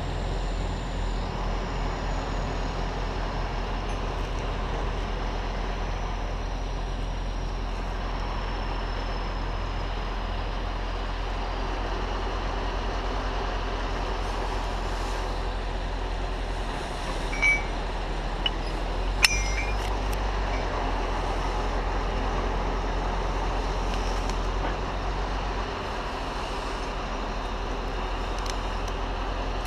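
Large diesel engine running steadily at a constant pace, likely the crane working the tree removal, with a few sharp metallic clicks about two-thirds of the way in.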